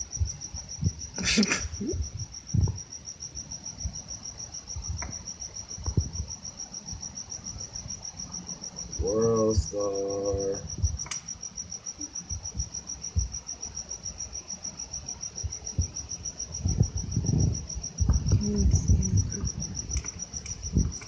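Cricket chirping: an unbroken train of rapid, high-pitched pulses at a steady rate. A few knocks and handling thumps break in, the loudest about a second in and again late on.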